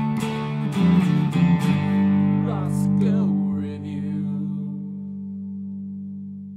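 Short guitar music sting: a few strummed chords, then one held chord ringing out and slowly fading.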